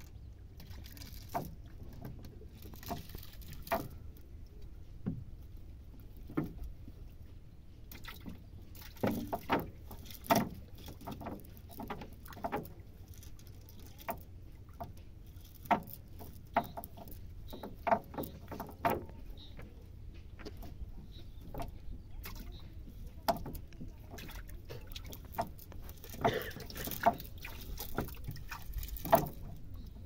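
A cast net being shaken out and fish picked from its mesh onto a plastic sheet in a wooden boat: irregular sharp taps, rustles and crinkles, over a low steady rumble.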